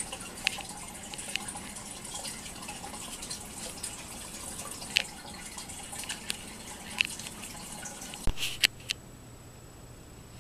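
Aquarium filter water trickling into the tank, a steady hiss with scattered drips and small splashes. About eight seconds in it cuts off to a quieter room with a faint low hum.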